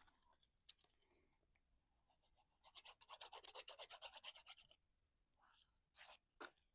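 Faint, fast rubbing or scratching on cardstock, about ten strokes a second for some two seconds, followed near the end by a few short paper rustles or taps.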